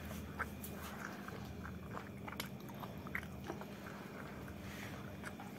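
A person chewing food with her mouth closed: faint, scattered soft clicks and smacks over a low steady hum.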